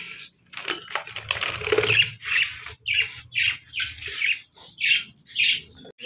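Budgerigars in a wire cage: a flurry of wing flapping and rustling as the birds are handled, then a string of short, high chirps about twice a second.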